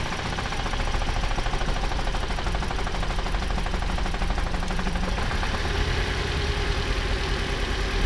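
A Toyota RAV4's 2-litre petrol four-cylinder engine idling with a steady pulse. It still misfires on cylinder 3 even with the spark plugs of cylinders 2 and 3 swapped, so the spark plug is not the cause.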